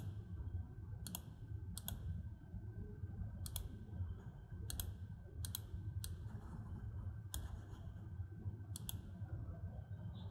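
Computer mouse button clicking about eight times at uneven intervals, each click a quick press-and-release pair, over a low steady hum.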